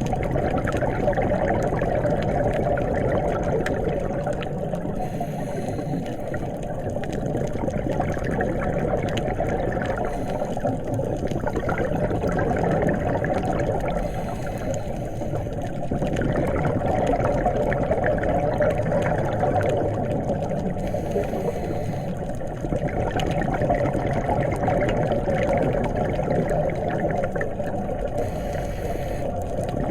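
Muffled underwater noise: a steady rushing of water and bubbles that swells and eases every few seconds.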